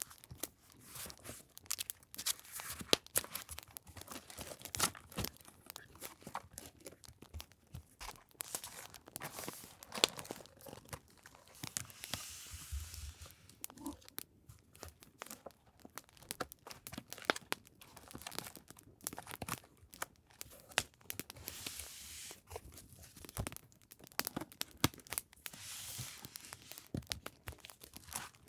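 Paper journaling materials being handled and sorted: rustling and crinkling paper with frequent small taps and sharp crackles, over an added campfire crackle.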